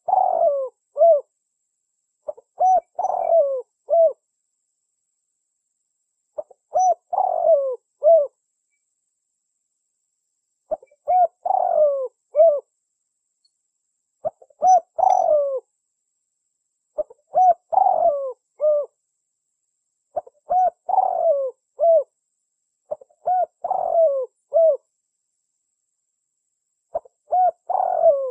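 Spotted dove cooing: a short phrase of several coos, the middle notes swooping up and down, repeated about every three to four seconds, nine times, with clean silence between phrases. A lure call recording used to attract spotted doves.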